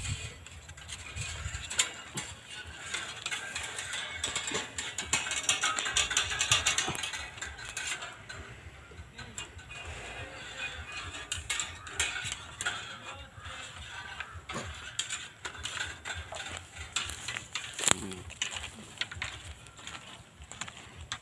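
Tie wire being worked and twisted against the top of a bamboo stake, giving irregular small clicks and scratchy rattles.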